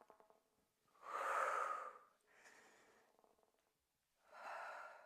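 A woman's audible breaths as she exercises: two breathy sounds, the first louder, about a second in, the second fainter near the end.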